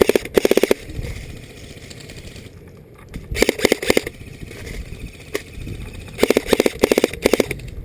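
Airsoft guns firing full-auto bursts as a rapid rattle of shots. There are three bursts: a short one at the start, one about three and a half seconds in, and a longer, broken one from about six to seven and a half seconds in. A single snap sits between the last two.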